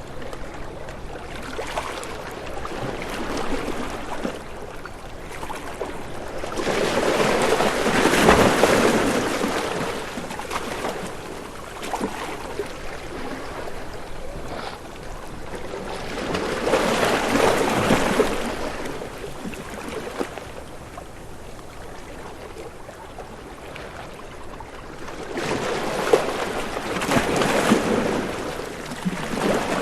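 Waves washing in: three slow swells of rushing water, roughly nine seconds apart, each building and then fading to a softer wash between.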